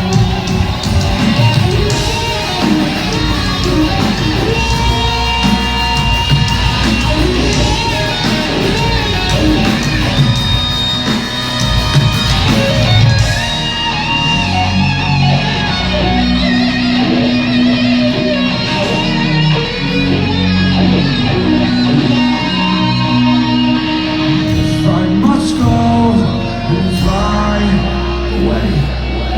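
Live rock band music played loud through a concert PA, with guitar to the fore.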